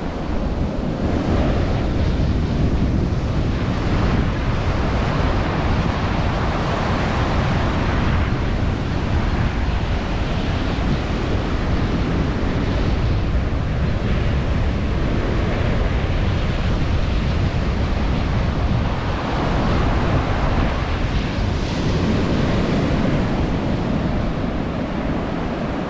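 Ocean surf breaking and washing up a sandy beach, rising and falling every few seconds, with wind rumbling on the microphone.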